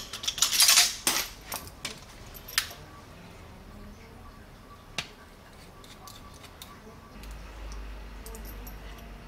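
Small metal precision screwdrivers clinking and rattling against their plastic case for the first couple of seconds, followed by a single sharp click about five seconds in and a low rumble of handling near the end.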